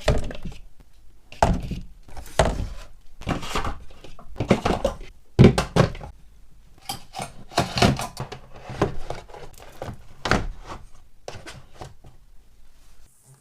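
Food containers and jars set down and shifted on fridge shelves: a dozen or so irregular thunks and clacks, heavier in the first half and lighter toward the end.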